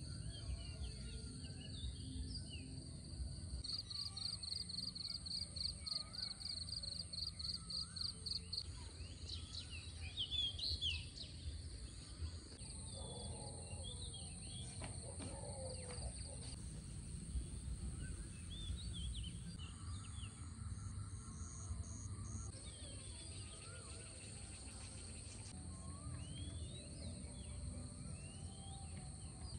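Outdoor ambience of birds chirping and calling over a steady high insect drone, with a low steady rumble underneath. A fast repeated trill, about four notes a second, starts a few seconds in and runs for about five seconds.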